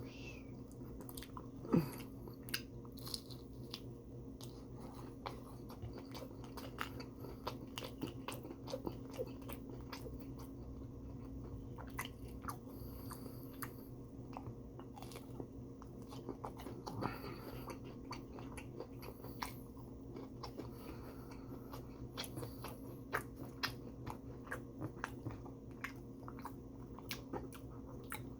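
A person biting and chewing fried chicken strips close to the microphone, with many small wet clicks and crunches scattered throughout. A steady low hum runs underneath.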